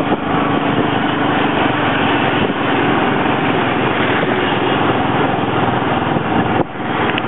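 Small motorcycle engine pulling a tuk-tuk, running steadily under way with road noise, heard from the passenger carriage. It drops out briefly near the end.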